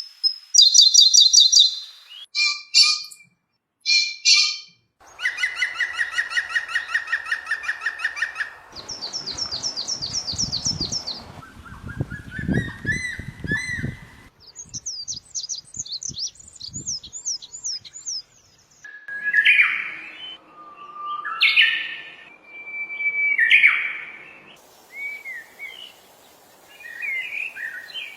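Songbirds singing, one recording cut to the next every few seconds: rapid high trills, a fast rattling run of repeated notes, a series of sweeping whistles, then varied short whistled phrases.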